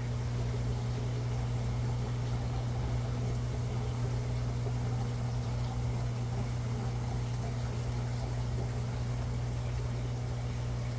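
Aquarium equipment running, a steady low hum with a few fainter tones above it and an even hiss underneath.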